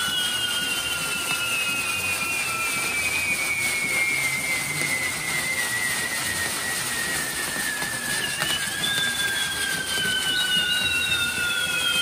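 Castillo fireworks tower burning: a steady hiss of spark fountains with long whistles that slowly fall in pitch, two more whistles starting in the last few seconds.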